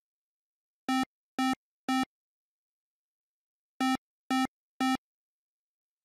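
Two sets of three short, identical 8-bit synthesizer beeps, each beep about half a second after the last, the second set about three seconds after the first.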